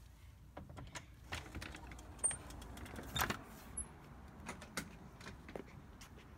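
Faint, irregular light clicks and rustles from someone walking across a dry lawn with a handheld phone, over a low rumble of wind and handling.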